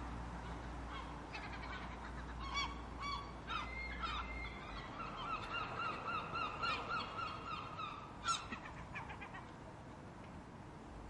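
Gulls calling: scattered squawks, then a rapid series of laughing calls at about four a second in the middle, and a loud squawk near the end before the calls thin out. A low background rumble lies under the first half and stops about halfway in.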